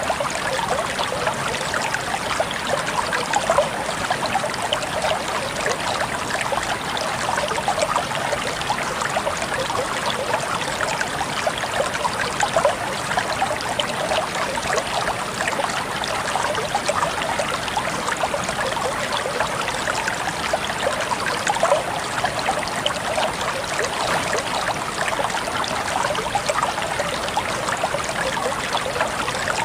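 Water trickling and bubbling steadily over stones, a small stream's continuous babble.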